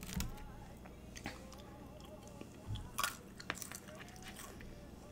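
Close-miked chewing and mouth sounds of someone eating chili cheese fries, with scattered short clicks and a slightly louder burst about three seconds in.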